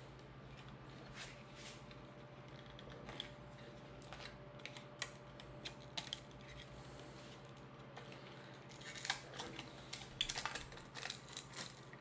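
Faint, scattered clicks and ticks of a Phillips screwdriver and small screws being worked out of a scooter's plastic GPS module, with a denser run of clicks near the end.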